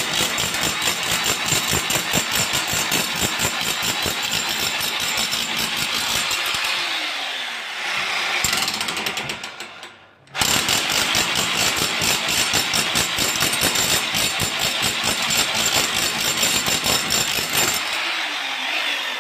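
A corded 7.5 kg electric demolition hammer chisels concrete off a brick wall with rapid, continuous blows. About eight seconds in its motor winds down and briefly stops. It starts again just after ten seconds and hammers on, then winds down once more near the end.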